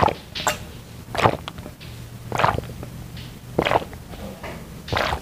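A person gulping water from a glass, recorded close up on a clip-on microphone: five swallows at an even pace, about one every second and a quarter.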